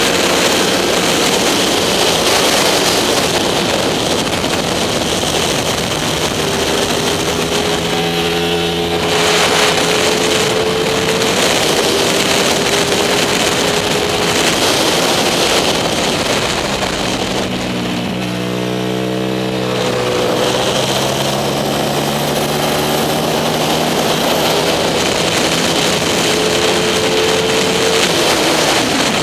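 Racing motorcycle engine at high revs, heard from the bike itself under heavy wind rush. The engine note holds fairly steady for long stretches, then about two-thirds through drops as the rider shifts down and climbs again as he accelerates out.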